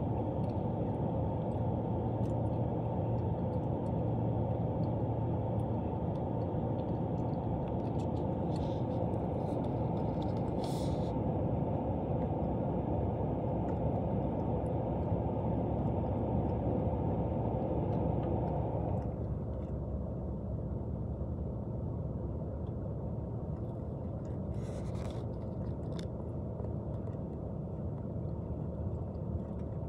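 Steady low rumble of road traffic, easing a little about two-thirds of the way through, with a few faint brief high-pitched sounds.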